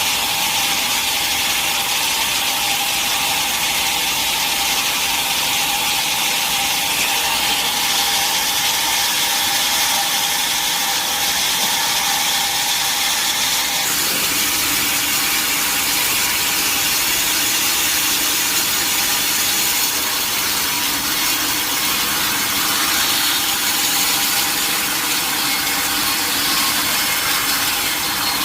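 Sawmill saw running through a large mahogany log, a steady loud whirring hiss of blade in wood. Its tone shifts abruptly about halfway through.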